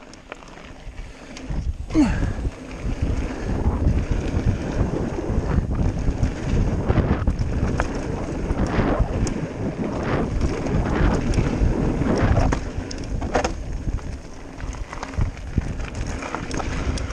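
Mountain bike descending a dirt and gravel trail at speed: wind rushing over the camera microphone, with tyre noise and frequent rattling knocks from the bike over bumps.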